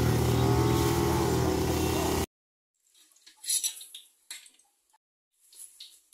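An engine running steadily cuts off abruptly about two seconds in. After that a metal spatula clinks against a wok on a gas stove in a few short, scattered taps.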